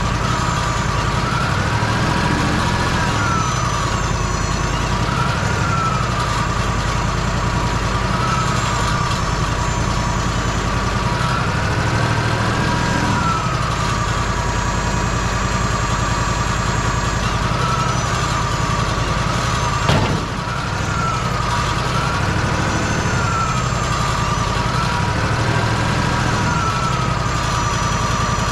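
Wood-Mizer portable band sawmill running steadily, its pitch rising and falling every few seconds. A single sharp knock comes about two-thirds of the way through.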